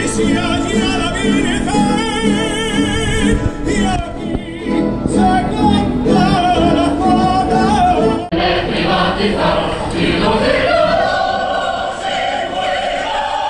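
Live orchestra and choir performing, with wavering, vibrato-laden sung and bowed lines over a full accompaniment. About eight seconds in the sound cuts abruptly to a fuller choral passage with the orchestra.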